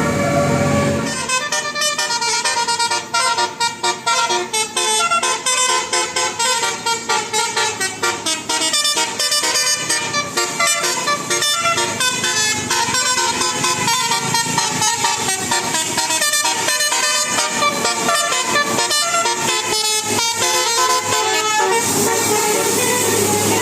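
Indonesian bus 'telolet basuri' musical air horn playing a quick tune of short notes, many of them rapidly repeated. It starts about a second in and stops near the end, giving way to a steady low hum.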